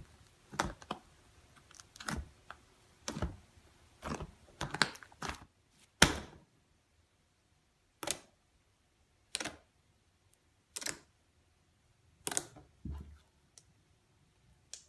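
Thick fluffy slime being squeezed and poked with fingers, trapped air popping out in sharp crackly clicks. The pops come close together for the first few seconds, the loudest about six seconds in, then slow to one every second or so.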